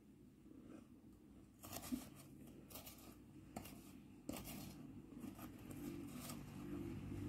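Metal spoon digging and scraping through a plastic bowl of shaved ice: faint crisp crunches and clicks, starting about a second and a half in and repeating irregularly.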